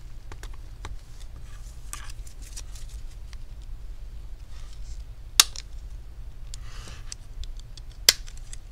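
Plastic display bezel of a laptop being pried away from its double-sided tape with a pry tool: small clicks and scrapes, with two sharp clicks, one about halfway through and one near the end, over a steady low hum.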